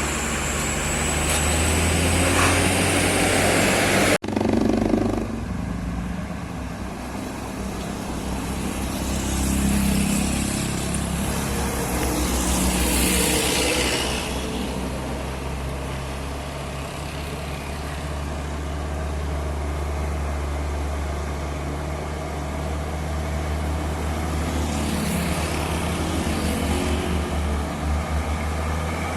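Heavy truck diesel engine running with a steady low drone, broken by an abrupt cut about four seconds in, with a brief hiss about halfway through.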